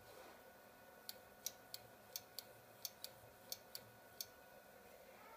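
About eleven sharp, small clicks at irregular intervals, from a screwdriver working at the motor mount of a homemade mini PCB drill press, over a faint background.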